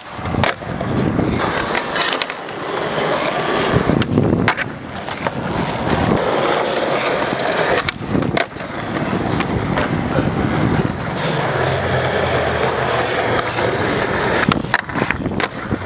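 Skateboard wheels rolling on asphalt, a continuous gritty rumble. It is broken by several sharp wooden clacks of the board popping off the tail and slapping down on landings during flip tricks, near the start, about eight seconds in, and again near the end.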